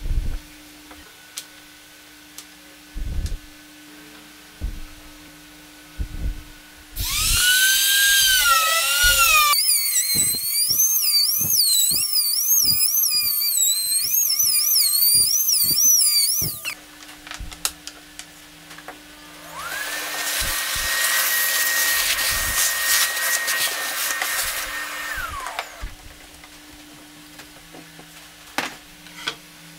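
Compact trim router cutting into a pine panel: the motor spins up with a rising whine, runs with a high whine that wavers in pitch as the bit takes the cut, and stops abruptly. After a short pause it runs a second, quieter pass and winds down, with wooden knocks from the frame jig being handled before and after.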